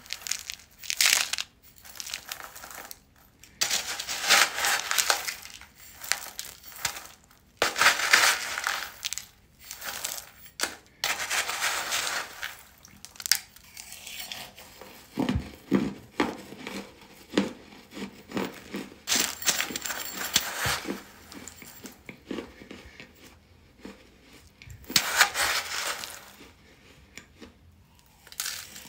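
Hardened baking-soda chunks crumbling, as a spoon scrapes through them in a bowl and they are crunched in the mouth. The sound comes in repeated bursts of crisp crumbling, with a run of quick separate crunches in the middle.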